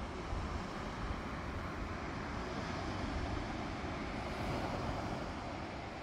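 Wind buffeting the microphone over a steady rush of surf breaking on the beach below, swelling a little midway.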